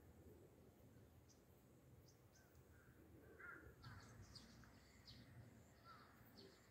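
Faint birds calling: a lower call about halfway through, then a run of quick, high chirps from small birds.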